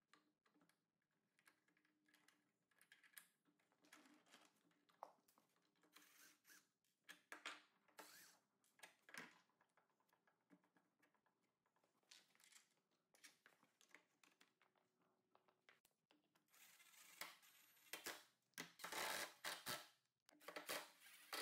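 Near silence with faint, scattered clicks and taps from the vise's parts being handled. A few louder rustling bursts come in the last few seconds.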